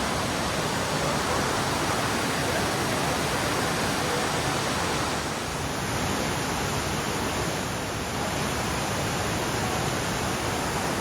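Steady, even rush of falling and flowing water from a monsoon-swollen waterfall or mountain stream.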